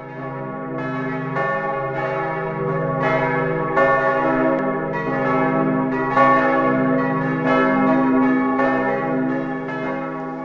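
Church bells pealing: several bells struck in an overlapping sequence, their tones ringing on. The sound fades in at the start and fades out near the end.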